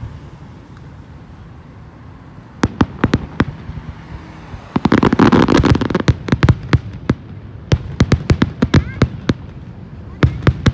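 Fireworks going off. After a couple of quiet seconds comes a string of sharp bangs, then a dense, loud volley of bangs and crackle about five seconds in, followed by scattered bangs.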